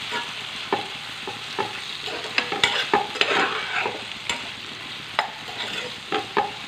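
Metal spatula scraping and knocking against a kadai as onions and tomatoes are stirred in hot oil, the knocks coming irregularly over a steady sizzle. The tomatoes are frying until soft.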